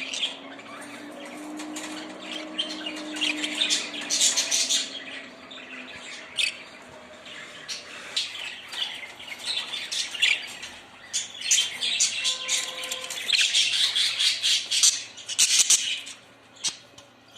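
Several budgerigars chirping and squawking, short sharp calls coming in busy clusters.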